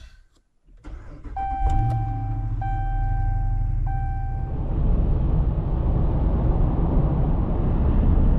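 A car engine starting and idling while a warning chime sounds three times. Then the engine and road noise build as the car drives off.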